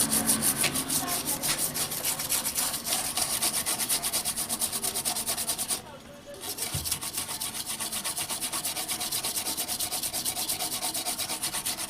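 Quick, even back-and-forth scrubbing strokes on the solder side of a CRT TV circuit board, cleaning flux from the freshly soldered audio IC pins with lacquer thinner, with a brief pause about six seconds in.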